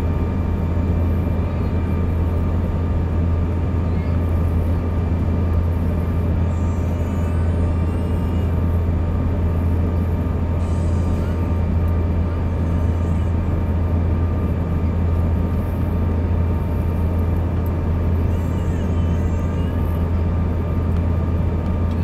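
Steady cabin noise of a Bombardier CRJ200 airliner in flight: a deep, even drone from its rear-mounted General Electric CF34 turbofan engines and the airflow, with thin steady whining tones from the engines above it.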